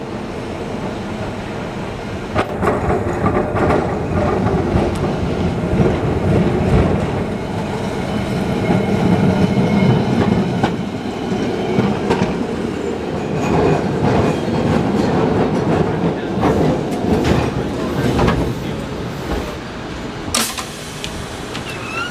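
1928 Peter Witt streetcar running along steel rails, with a steady low rumble and irregular clicks and knocks from its wheels over the track. Near the end there is one sharp clack.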